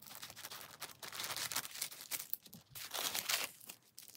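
Thin plastic mailer bag being cut open with scissors and crinkling as it is handled, in several short, irregular rustles; bubble-wrapped contents rustle as they are pulled out near the end.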